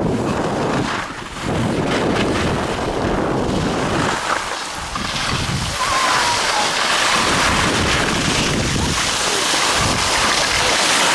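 Wind buffeting the microphone of a skier moving downhill, mixed with the hiss of skis scraping over packed snow. The hiss grows louder about halfway through as the skier slows.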